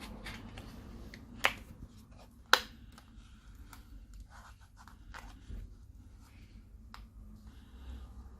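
Light clicks and scrapes of small repair tools working on a smartphone's parts, with two sharp snaps about a second apart near the start.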